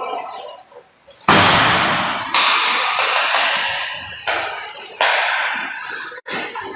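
Hockey sticks and puck cracking on an indoor ice rink: six or so sharp hits, the loudest a little over a second in, each trailing off in the arena's long echo.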